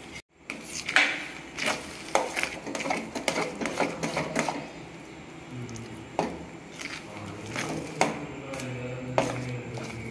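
A slotted steel spoon scraping and clinking against a stainless-steel pan as it stirs thick, cooking semolina kesari, in irregular knocks and scrapes about once or twice a second.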